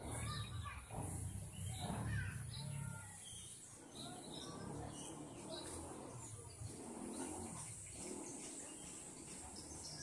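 Scattered bird chirps and short calls, fairly faint, with a low rumble under them in the first three seconds.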